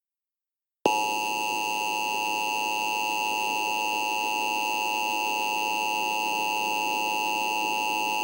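Emergency Alert System attention signal: a steady, harsh two-tone alert tone that starts abruptly about a second in and holds at one level for about eight seconds, with a faint hiss under it. It is the tone that announces an emergency alert message, here a tornado warning.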